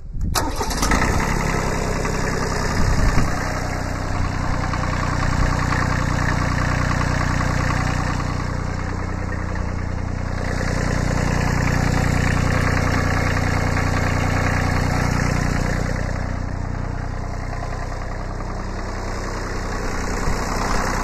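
Kubota B7100's D750 three-cylinder diesel engine starting up after an oil change and then running steadily, a little louder from about ten seconds in.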